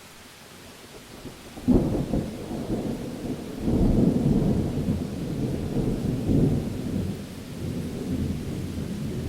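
Thunder: after a soft hiss, a sudden loud crack about two seconds in, then a long low rumble that swells again about four seconds in and rolls on.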